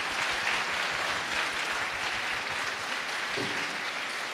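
Large audience applauding, a dense patter of many hands clapping that eases off slightly near the end.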